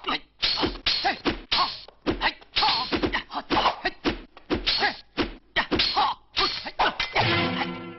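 Classic kung-fu film fight sound effects: exaggerated punch and kick whacks landing in quick succession, about two or three a second. A brief pitched sound is held near the end.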